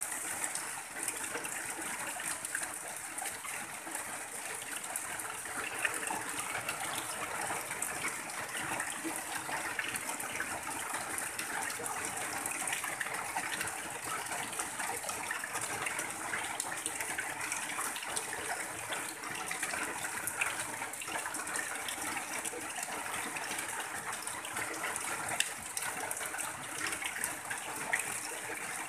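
Rain falling steadily on a tin roof, with runoff pouring off the roof edge in a continuous stream.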